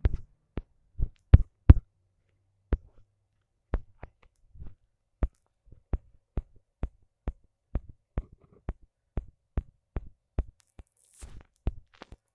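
A fingertip tapping and flicking on a phone touchscreen while scrolling: an irregular run of short, sharp taps, about two to three a second.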